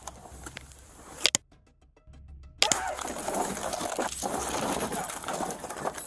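Two sharp bangs about a second and a half apart, followed by loud, confused scuffling and commotion.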